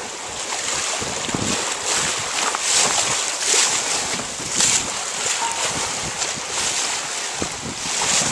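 Wind buffeting the microphone over the rush of water past a sailboat's hull while under sail, surging and easing unevenly.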